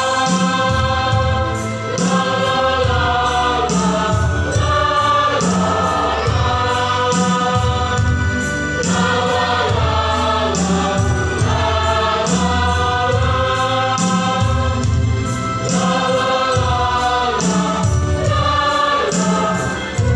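Choir singing a Christian song in Indonesian, with sustained chords over a steady beat and bass.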